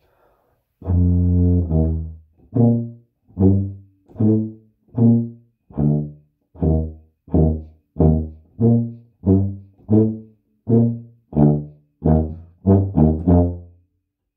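Solo tuba playing a slow, low melody. It opens with one long held note, then a string of separate notes, each swelling and fading, a little under a second apart, with three quicker notes near the end.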